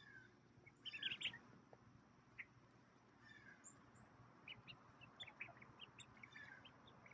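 Young mallard ducks peeping: short high peeps and a few falling calls, loudest in a cluster about a second in, then a scatter of quick chirps later on.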